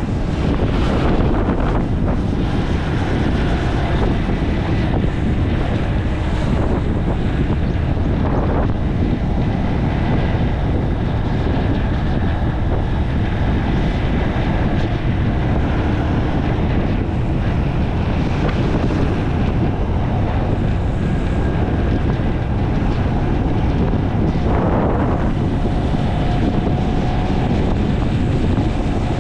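Steady, loud wind buffeting the microphone on a moving motorbike, with a faint engine hum underneath.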